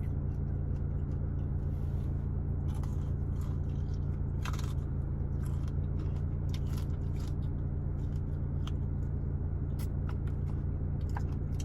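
Biting and chewing into a breaded fried frog leg, with scattered crisp crunches from the breading. A steady low hum runs underneath.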